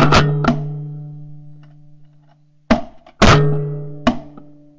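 Shotgun volley of about five shots from the hunters: two in quick succession at the start and three more between about two and a half and four seconds in. Each is followed by a low, humming ring that fades away over a second or two.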